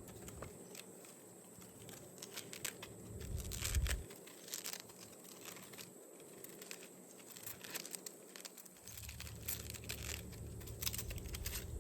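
Quiet rustling, crinkling and light clicking as small stick-on sanding discs are handled and sorted by hand.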